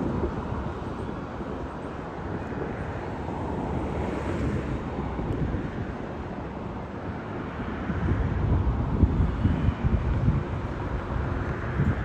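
Outdoor ambience dominated by wind buffeting the microphone: a low, rumbling rush that grows gustier in the second half.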